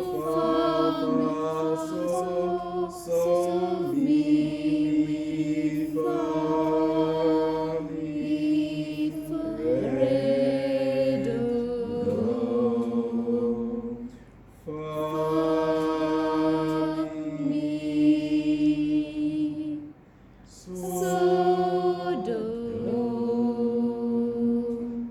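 A small choir singing long held notes unaccompanied, several voices at different pitches together, in a few sustained phrases broken by two short breaths about halfway through and again later.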